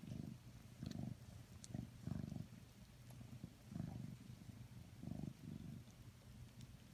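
Sleeping domestic cat purring faintly, a low rumble that swells with each breath about every second to second and a half.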